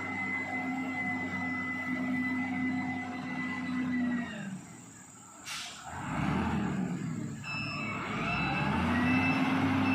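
Diesel engine of heavy road-building machinery running, with a steady drone and a high whine. The sound drops away about four seconds in, a single sharp click comes about halfway, then the machine runs louder and rougher, with the whine coming back near the end.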